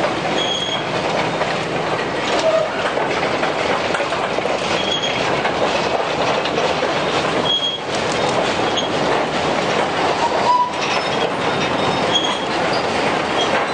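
A train of empty narrow-gauge steel cane wagons rolling past on the track, wheels and frames rattling and clattering, with brief high squeals from the wheels every few seconds.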